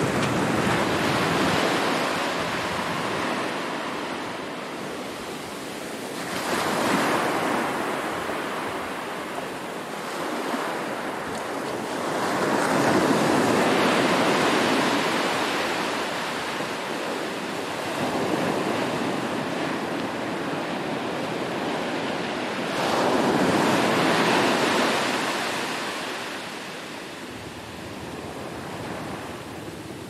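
Small surf breaking on a sandy beach: a wash of noise that swells and fades about four times as each wave breaks and runs up the sand.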